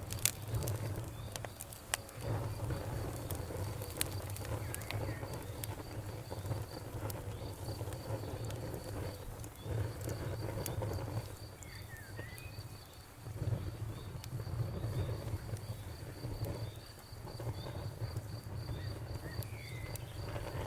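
Wood fire crackling with scattered sharp pops over a low rushing of flames that swells and dips. A cricket chirps in an even, rapid pulse throughout, and a bird gives a few short chirps.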